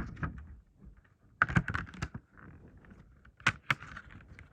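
Plastic phone case and phone being handled: irregular sharp clicks and taps in three short clusters, with light rustling between.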